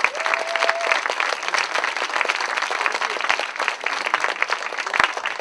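Audience applauding, a dense, steady clapping louder than the preceding talk, with a brief steady tone sounding in the first second.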